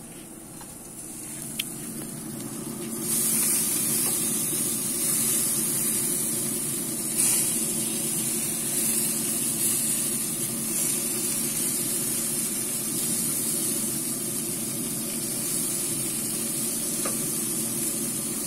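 Steaks sizzling on hot grill grates: a steady hiss that gets louder about three seconds in, over a steady low hum.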